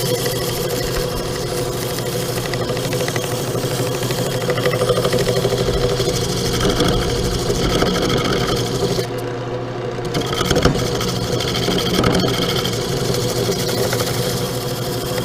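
Wood lathe motor running steadily, with sandpaper rubbing against the spinning wood. The high hiss drops away briefly about nine seconds in.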